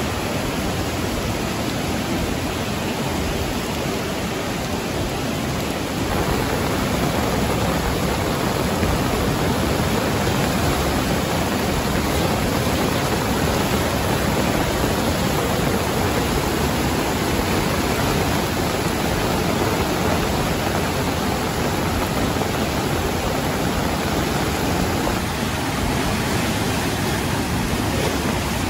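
Swollen river in flood rushing past: a dense, steady noise of fast, churning water, a little louder from about six seconds in.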